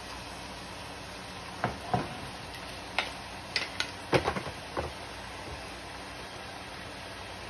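Wooden spatulas knocking and scraping against a stainless steel pan while vegetables are stirred: a cluster of about eight sharp clacks between two and five seconds in, over a steady hiss.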